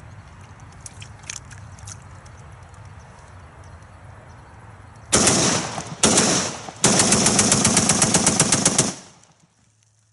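SKS Paratrooper semi-automatic rifle in 7.62×39 being bump fired: starting about five seconds in, three rapid strings of shots in quick succession, the last and longest about two seconds of fast fire, then it stops suddenly.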